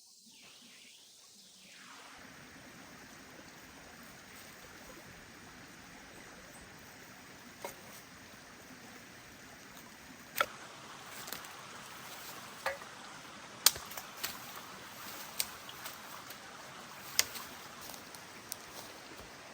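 Wood fire crackling: a steady hiss with irregular sharp pops, which grow more frequent from about eight seconds in.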